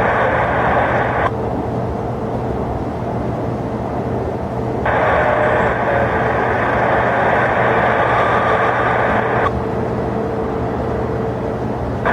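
Air traffic control radio keyed twice with static hiss but no readable words, once at the start and again for about four and a half seconds in the middle, over a steady low rumble of airport and aircraft engine noise.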